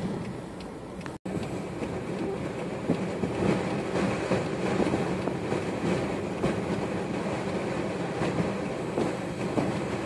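Blizzard wind blowing hard across the microphone: a steady rumbling rush broken by frequent short crackling gusts. The sound cuts out for an instant about a second in.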